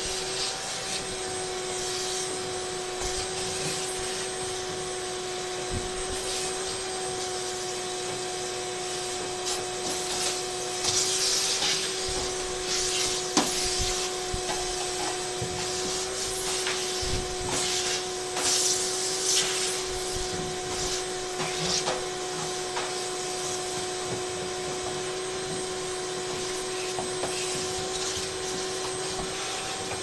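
Vacuum cleaner running steadily with a constant whine, its nozzle scraping and rubbing against the inside of a clothes dryer's front opening as it sucks up lint and debris, the scraping loudest about 11 and 19 seconds in.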